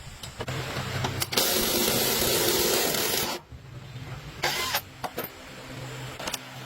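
Pressurised spray hissing in a long burst of about two seconds, then a short burst a little later, over a steady low machine hum and a few clicks.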